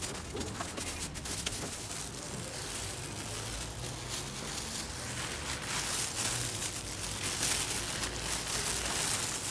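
Thin clear plastic bags and a disposable plastic glove crinkling and rustling as fresh herbs are stuffed into a bag by hand, getting busier and louder over the last few seconds.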